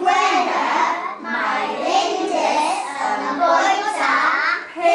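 A group of young children singing together, their voices running on continuously with only brief breaks.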